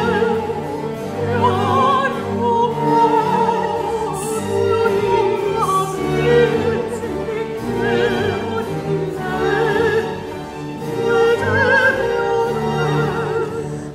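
Countertenor and soprano singing a baroque opera duet in Italian, their voices interweaving with wide vibrato, over a period-style orchestra.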